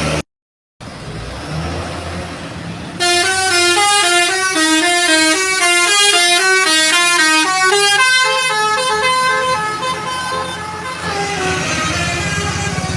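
Tour bus basuri musical horn playing a quick melody of stepped notes. It starts loudly about three seconds in over a low engine hum and fades out a few seconds before the end, leaving engine rumble.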